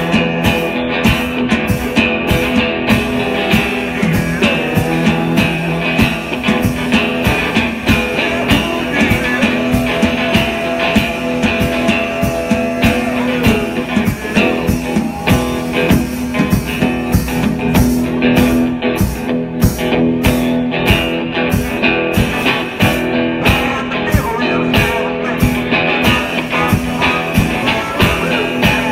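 Live blues-rock played by a duo: an amplified harmonica, blown into a handheld microphone, wails held, bending notes over a drum kit beating a steady, driving rhythm.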